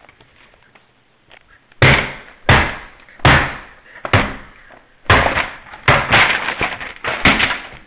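A run of about eight loud thumps, starting about two seconds in and coming roughly every three-quarters of a second, each dying away quickly, like a figure bouncing in springy jumping shoes.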